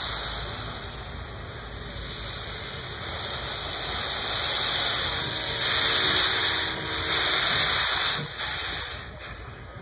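Steam hissing in irregular surges, strongest about six seconds in, then dying down near the end.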